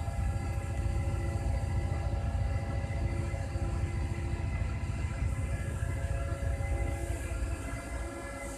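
Steady hum of a standing MF67 Paris metro car's onboard equipment, heard from inside the car: a low rumble with several steady tones above it, easing slightly near the end.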